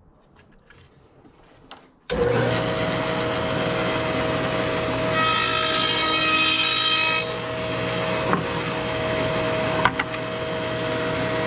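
Table saw with a dado blade starting up about two seconds in and running steadily. From about five to seven seconds the blade cuts a quarter-inch groove across a wooden hive-body board, adding a harsh rasping sound over the motor, before it runs free again.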